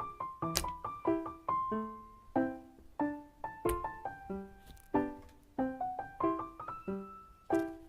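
Piano music: a light melody of short, quickly fading notes, with a few sharp clicks among them.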